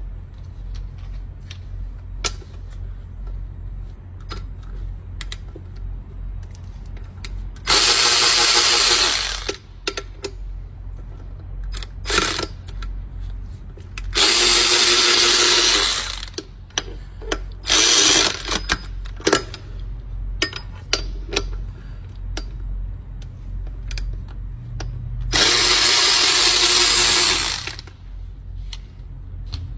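Handheld power ratchet run in several bursts of up to about two seconds, with light clinks of metal between them, undoing the fasteners of a pipe on a DD15 diesel engine. A steady low rumble runs underneath.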